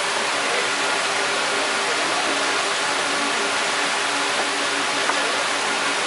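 A steady rush of running water, with a faint knife tap on a wooden cutting board about five seconds in.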